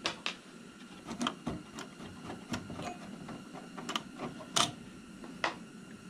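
Scattered light metallic clicks and taps as small screws are worked loose by hand on the side of a kerosene heater and its sheet-metal parts are handled. The sharpest click comes a little past halfway.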